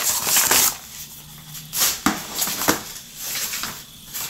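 A padded paper mailer crinkles as a cardboard box is slid out of it. Then come a few light knocks as the box and hands handle it on the table.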